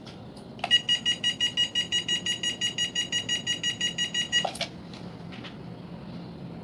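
Electronic beeper sounding a rapid run of high, even beeps, about seven a second, for nearly four seconds. A click comes just before the beeps start and another as they stop.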